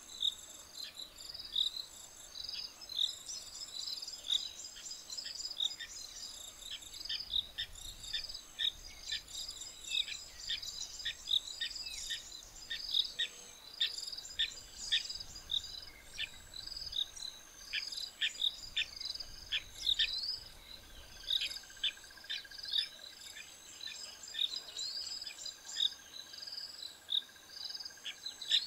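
Bush ambience: insects trilling steadily, with many short bird chirps throughout. A faint steady high tone joins about halfway through.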